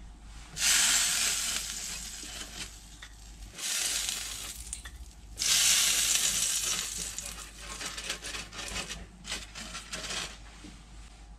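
Melted butter sizzling as it is brushed onto the hot plates of an electric waffle iron, in three loud surges that each fade away, then softer crackling.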